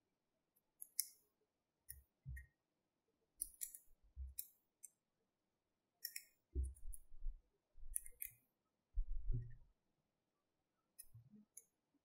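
Small magnetic balls clicking as they snap onto a sculpture built of magnetic balls: a dozen or so sharp, short clicks at irregular intervals, several with a dull low thump of handling.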